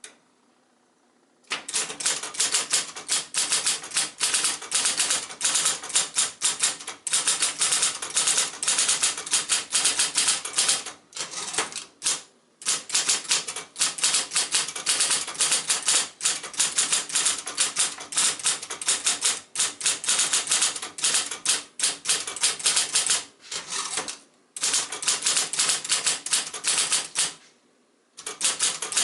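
A 1972 Royal Apollo 10-GT electric portable typewriter typing a fast, continuous run of motor-powered keystrokes. It starts about a second and a half in and pauses briefly a few times, once shortly before the end.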